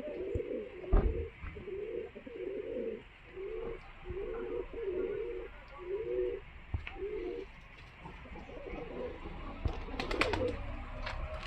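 Domestic pigeons cooing, a run of low repeated coos that stops about two-thirds of the way through. A few sharp knocks follow near the end.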